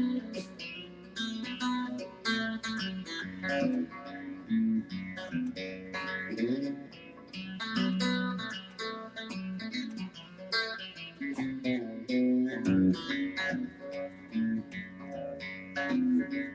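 A plucked acoustic string instrument played solo as an instrumental break in a song: a quick picked melody of many short notes over lower bass notes.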